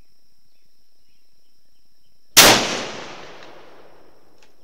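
A single shot from a Savage 110 Ultralight rifle in .300 Winchester Short Magnum: a sharp crack about two seconds in, with a decaying echo lasting about a second and a half. Insects chirp steadily throughout, and a couple of faint clicks come near the end.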